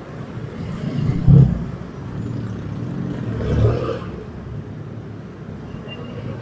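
Motorcycle engine running and revving in slow stop-and-go traffic, with the surrounding cars' traffic noise. Two louder swells come through, the sharpest about a second in and another near the middle.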